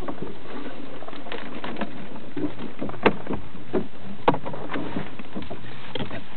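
Crayfish traps being handled in a small boat: rustling and light clatter of the net traps, with two sharp knocks in the middle.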